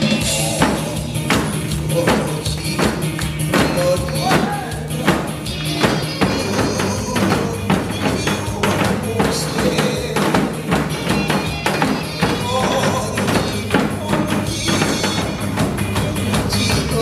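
Janggu (Korean hourglass drums) struck in many quick, sharp strokes along with recorded backing music that has a steady beat.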